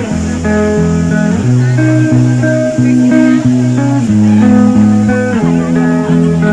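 Background music: held chords over a bass line, the chord changing every second or so.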